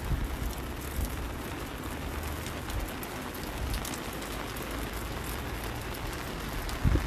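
Steady rain falling on a wet metal-and-concrete footbridge, an even hiss with fine patter of drops, with some low wind rumble on the microphone near the start.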